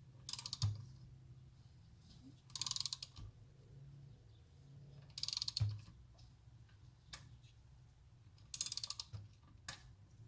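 Short bursts of rapid ratcheting clicks, four of them a couple of seconds apart with a few single clicks between, as a BMW R1150GS boxer-twin engine is turned over by hand, checking for a small click at top dead center after a rebuild.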